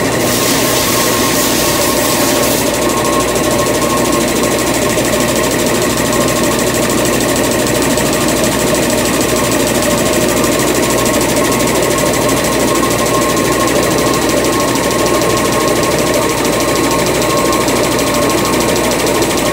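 Automatic toilet paper maxi roll production machinery running steadily, a dense mechanical clatter with a constant whine. A high hiss sounds over the first two or three seconds and then stops.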